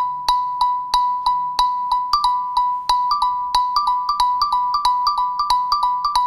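Google Pixel 3a XL ringtone playing: one short, bright note repeated about three times a second, with a second, slightly higher note joining about two seconds in to make a quicker two-note pattern.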